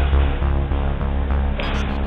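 Background music with a steady electronic beat and a heavy bass pulse, turning brighter about 1.6 s in as high, rhythmic percussion comes in.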